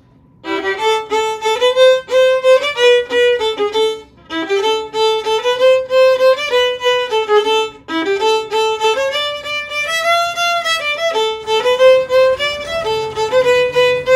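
Background music: a solo violin playing a melody of held notes in phrases, with short breaks about four and eight seconds in.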